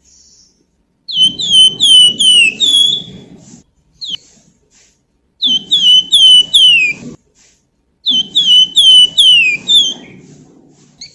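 Flamboyan (wergan Jawa) songbird singing three quick phrases of clear, flute-like whistled notes, each note sliding downward, with short pauses between the phrases.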